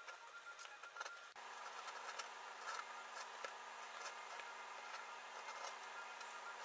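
Small hand gouge cutting feather lines into high-density urethane foam: a run of faint, quick scratching clicks as chips lift away. A steady hum comes in about a second and a half in.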